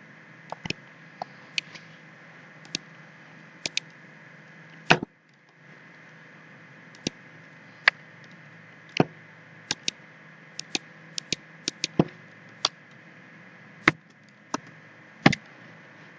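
Computer mouse clicking at an irregular pace, about twenty clicks, some in quick double clicks, over a steady low hum and hiss.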